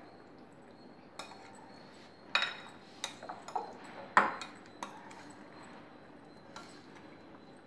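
A spoon knocking and scraping against a glass bowl while mixing raw chicken pieces in their marinade: a scattered series of clinks, the loudest about two and a half and four seconds in.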